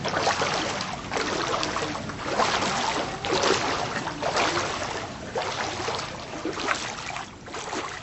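Floodwater sloshing and splashing in irregular surges, fading near the end.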